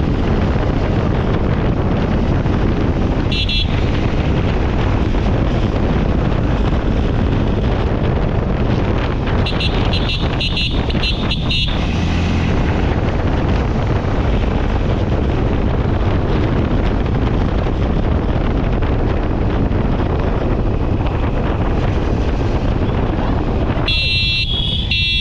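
Steady wind rush and road noise while riding a motorcycle, with a short vehicle horn toot about three seconds in, a string of quick horn beeps around ten to eleven seconds, and another burst of honks near the end.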